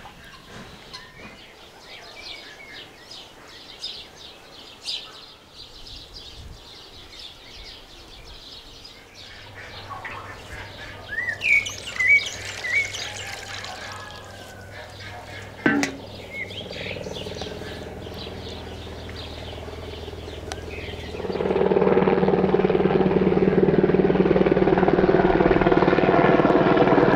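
Birds chirping in the open air. About two-thirds of the way through, a much louder, steady engine drone with a low hum starts suddenly and takes over.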